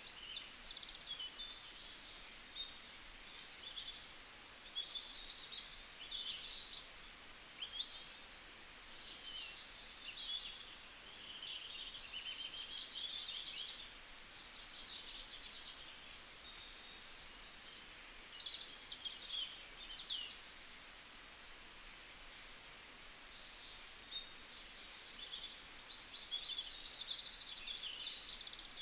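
Small birds chirping and twittering: many overlapping high, quick calls and short trills over a faint steady background hiss.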